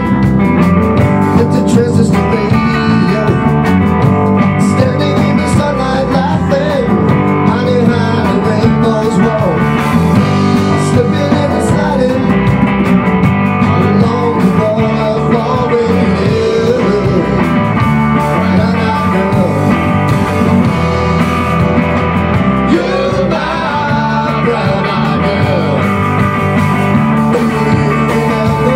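A rock band playing live: electric guitar, electric bass and a drum kit, loud and steady.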